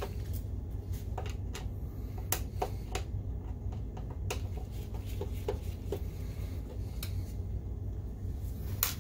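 Scattered light clicks and taps as gloved hands handle a projector's plastic case, about a dozen over the stretch with a sharper one near the end, over a steady low hum.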